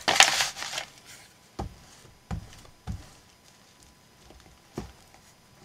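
Paper rustling for under a second as a cut-out piece is handled, then four soft taps of hand and paper on the table.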